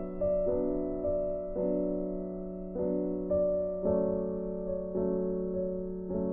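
Background music: soft piano, unhurried single notes each struck and left to fade, over a steady held low note.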